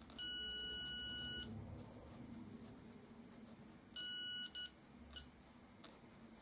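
Handheld wall scanner (stud, pipe and cable detector) beeping. It gives one long high beep of about a second and a half, then a shorter beep with a quick blip about four seconds in, signalling the edge of a stud behind the plasterboard.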